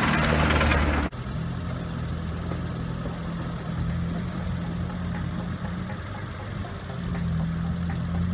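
Suzuki Sidekick's four-cylinder engine working under load. It starts as a loud close pass with rushing wind that cuts off after about a second, then carries on as a steadier, farther-off drone while the truck climbs a steep dirt hill, rising a little near the end.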